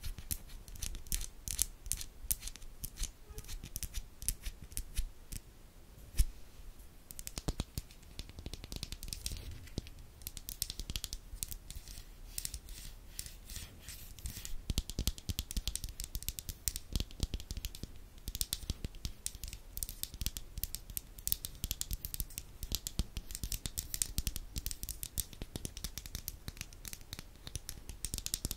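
Long acrylic fingernails rapidly tapping and scratching on a lip gloss tube held close to the microphone, a dense, continuous patter of quick, crisp clicks.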